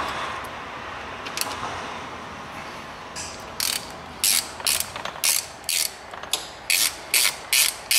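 Ratchet wrench on a socket extension clicking in short back-and-forth strokes, about two a second, starting around three seconds in, as it undoes the last bolt holding the oil pickup pipe.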